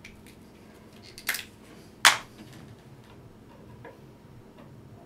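Two sharp clicks from a hand tool working the end of a coax cable, a little under a second apart, the second louder, followed by a few faint handling ticks.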